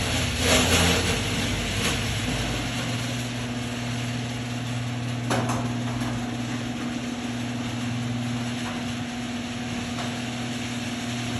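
Electric garage door opener running, moving the freshly lubricated door along its track with a steady motor hum and a click about five seconds in. The run goes through without stopping.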